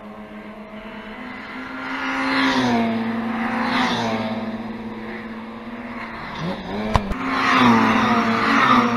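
Classic Mini race cars, with BMC A-series four-cylinder engines, passing at speed. Each engine note swells and drops in pitch as the car goes by: once about two seconds in, again about four seconds in, and loudest near the end. A single sharp click comes just before the last pass.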